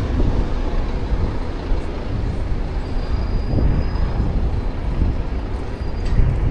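Steady low rumble of city street traffic, swelling briefly about halfway through and again near the end.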